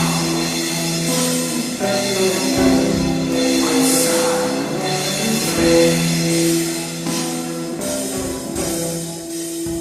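Heavy rock music: guitars holding slow, drawn-out chords over drums, with occasional cymbal crashes.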